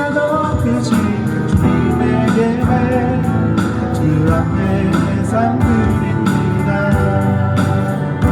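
Live band music with a steady beat and sustained melody notes.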